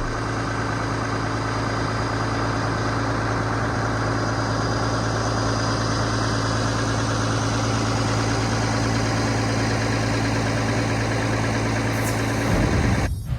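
Semi truck's diesel engine idling steadily, heard from inside the cab. It swells briefly near the end and then cuts off suddenly.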